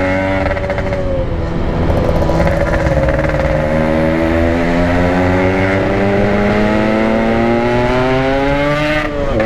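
Yamaha RX-King two-stroke single-cylinder engine running under way; its pitch drops early on, then climbs slowly and steadily as the bike gathers speed, with a brief sharp dip near the end. The engine is freshly bored up and being run in, so it is ridden gently rather than at full throttle.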